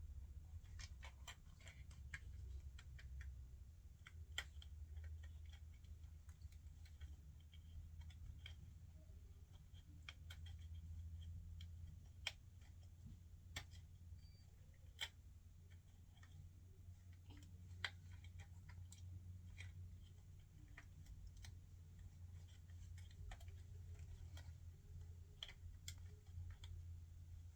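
Faint, irregular clicks and light crinkles of a small plastic toy package being opened and its pieces handled, over a low steady hum.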